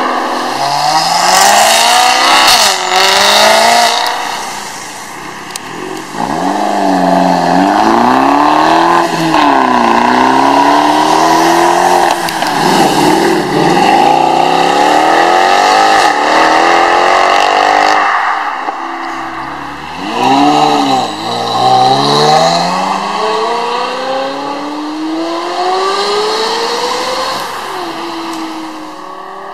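A string of performance cars accelerating hard past one after another, engines revving up through the gears, including a Mercedes C63 AMG's V8. The loudness swells as each car passes and dips between them.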